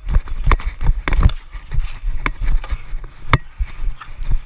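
Sneakers running on plastic dek hockey tiles and hockey sticks clacking on the surface: a quick, irregular string of sharp clicks, the sharpest about three seconds in.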